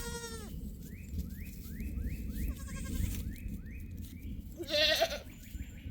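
Goats bleating: a wavering bleat trails off at the start and another loud, quavering bleat comes about five seconds in. In between, a faint run of quick rising chirps.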